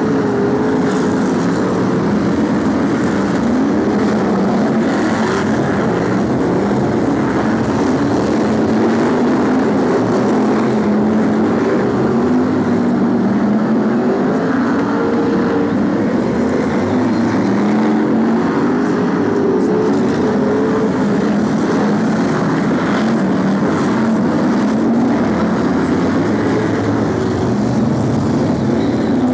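Several BriSCA F1 stock cars' V8 engines running hard in a race, the engine note rising and falling as the cars accelerate and lift off round the oval.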